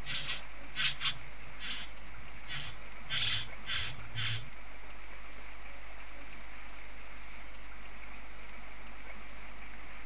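Young male satin bowerbird giving a run of about eight short, harsh calls over the first four and a half seconds: practice of the courtship display. After the calls only a steady background hiss is left.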